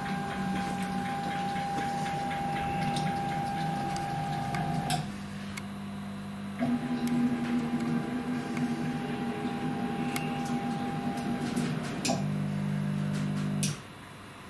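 Stepper motors of a CNC router driving its axes to the home switches: a steady motor whine that changes pitch three times as the moves change, with a few sharp clicks. It stops shortly before the end.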